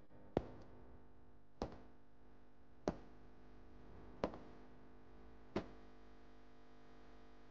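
Five sharp taps or knocks, evenly spaced about a second and a quarter apart, each ringing briefly, over faint room tone.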